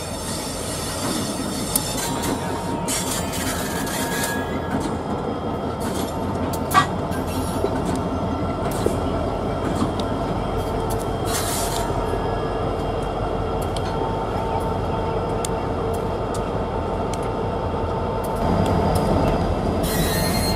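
Several Union Pacific diesel-electric locomotives rolling slowly past, their engines running steadily, with scattered metallic clicks and clanks from wheels and couplers, the sharpest about seven seconds in. It grows louder in the last couple of seconds as the units come closer.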